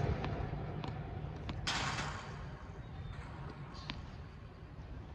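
Tennis ball bounced on a hard court before a serve: a few faint, sharp taps over a low steady outdoor rumble, with a short hiss about two seconds in.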